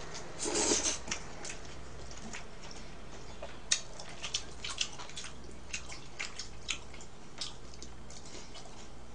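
Close-up eating sounds of a person eating black-bean-sauce noodles: a short slurp near the start, then a run of short wet smacks and clicks from chewing.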